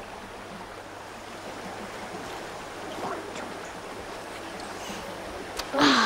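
Steady rushing of a flowing stream, a continuous even hiss of running water. A short, louder burst of sound comes just before the end.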